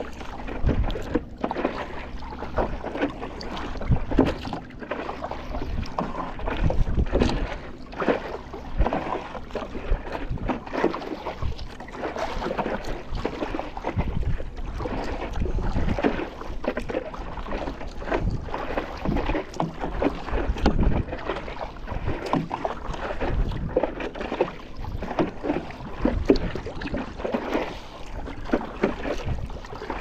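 Double-bladed paddle dipping and splashing into seawater stroke after stroke from a paddleboard, with water slapping and trickling around the board. Wind buffets the microphone in an uneven rumble.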